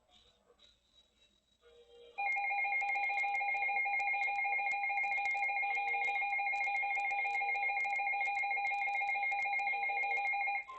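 Emergency Alert System attention tone: a loud, steady electronic alarm tone of several fixed pitches sounded together. It starts about two seconds in, holds for about eight seconds and cuts off abruptly.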